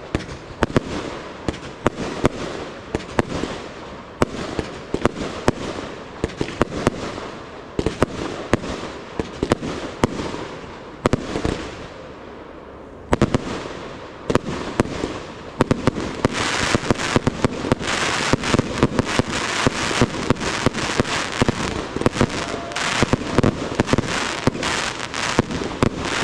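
Aerial fireworks display: shells bursting one after another with sharp bangs, a short lull about halfway through, then a dense crackle of glittering stars over rapid bangs for the last third.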